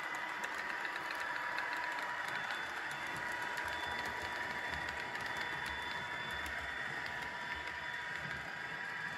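Sound-equipped model diesel locomotive playing a steady running engine sound through its speaker, with the train's wheels rolling and lightly clicking over the track.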